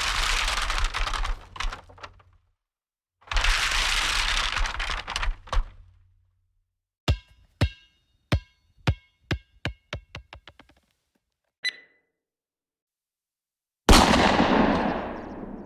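A string of short stock sound effects: two noisy bursts with a low rumble under them, then a run of sharp knocks that come closer together and fade out, a single short ding, and near the end a loud hit that fades away.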